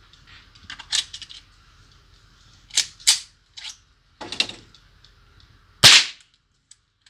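Sharp metallic clicks and clacks as an AR-style rifle, made on a 3D printer, is handled and readied, then a single gunshot just before six seconds in, the loudest sound.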